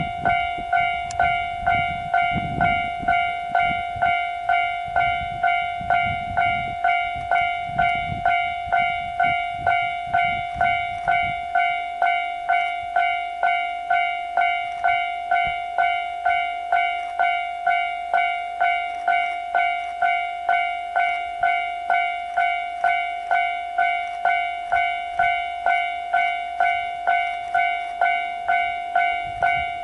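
Railroad grade-crossing warning bell ringing steadily, about one and a half strikes a second, each strike fading before the next. Under it, a low rumble of train and snow noise runs for about the first eleven seconds, then stops.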